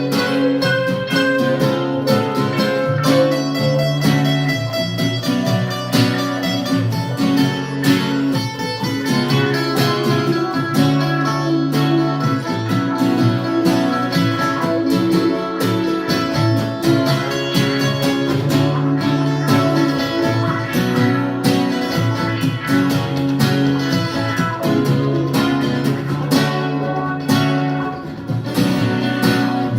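Acoustic guitar strumming chords: an instrumental passage of a song, with no singing.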